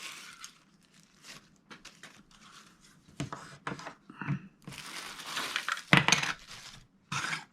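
Packaging rustling and crinkling with light plastic clicks and knocks as small smoke alarms are lifted out of their box; the busiest handling comes around five to six seconds in, with a sharper knock near six seconds.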